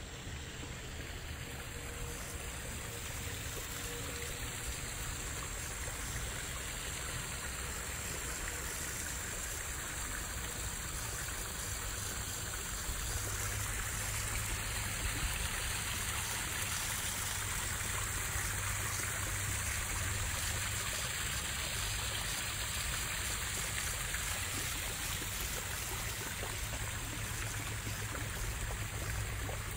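Water from a backyard koi pond's small rock waterfall and fountain jet splashing steadily into the pond, a continuous trickling that gradually gets louder.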